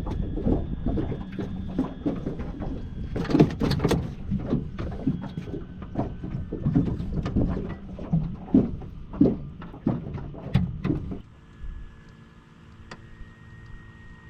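Wind buffeting the microphone, with irregular knocks and clatters of handling on a boat. About 11 seconds in the sound cuts suddenly to a quieter, steady hum.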